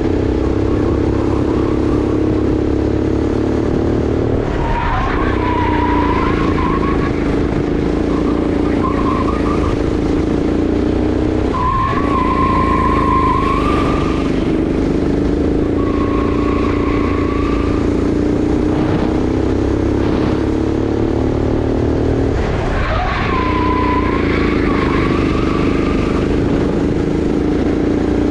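A Sodi RX8 rental kart's 390 cc engine runs hard, dipping briefly three times as the kart slows for corners. Each time the tyres squeal through the turn that follows.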